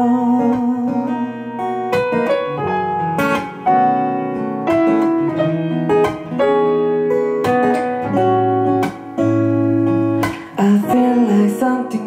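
Acoustic guitar strummed through an instrumental break in a slow ballad, with long held notes ringing over the strums.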